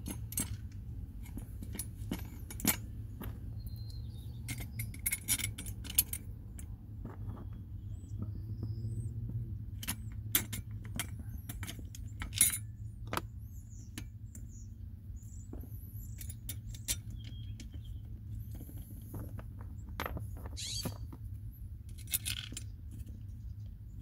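Scattered small metallic clicks and clinks from a steel HVAC blend door actuator mounting bracket and its small screws being handled, over a low steady rumble.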